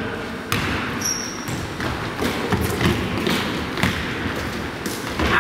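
Basketball bouncing on a hardwood gym floor amid players' running footsteps, giving irregular thuds, with a brief high sneaker squeak about a second in.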